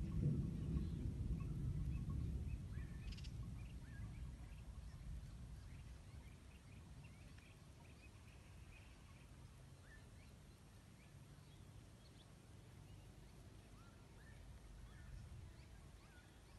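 Outdoor ambience: a low rumble swells at the start and dies away over several seconds. Faint short bird calls are scattered throughout.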